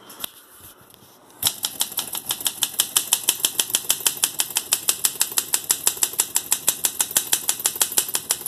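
Olympia Deluxe manual typewriter being typed on: a fast, very even run of key strikes, about six a second, that begins with one louder clack about a second and a half in. A small click comes just before.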